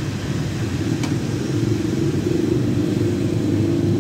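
Steady low rumble of road traffic, with a single short click about a second in.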